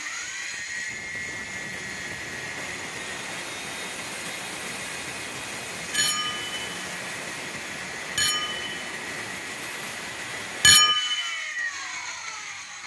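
Angle grinder with a thin cut-off disc spinning at speed with a steady high whine. It bites into a square steel tube three times, a couple of seconds apart, each time with a sharp ringing screech, the last the loudest. Near the end it is switched off and its whine falls in pitch as the disc winds down.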